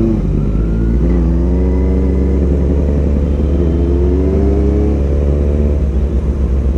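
Kawasaki Z900's inline-four engine running under light throttle, the revs rising and easing off several times over a steady low exhaust rumble.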